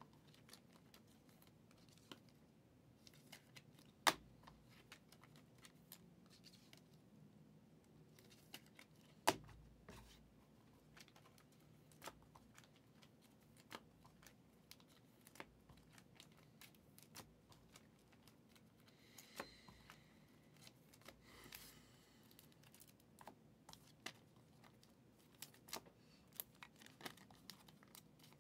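Faint handling of trading cards and foil card-pack wrappers: scattered light clicks and taps, two sharper knocks about four and nine seconds in, and a short stretch of crinkling and tearing about two-thirds of the way through.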